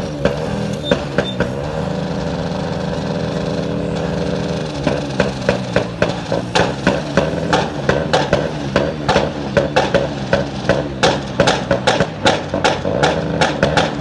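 An engine running steadily. From about five seconds in it is joined by loud repeated banging, two to three knocks a second, heard as a noise nuisance.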